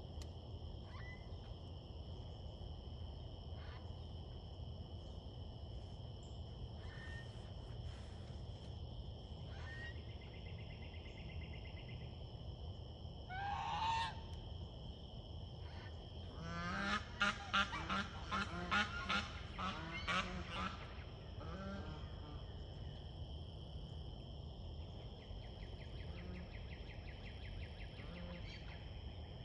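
Domestic goose honking: one rising call about halfway through, then a quick run of about seven honks a few seconds later.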